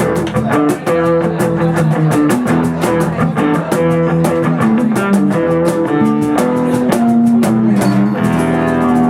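Live rock band playing an instrumental passage: strummed guitar chords and bass over a drum kit keeping a steady cymbal beat, the drumming thinning out near the end.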